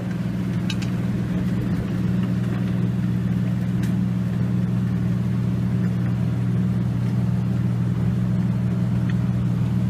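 Steady low machine hum of the processing equipment running at constant speed, an even drone with no change in pitch or level.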